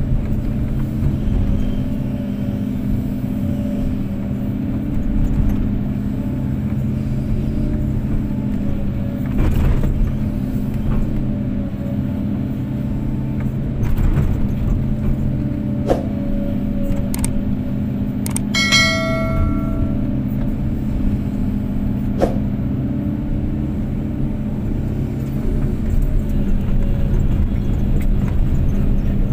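Kobelco SK250-8 excavator's diesel engine running steadily under work, with a few scattered knocks. About two-thirds of the way through there is a brief metallic ring.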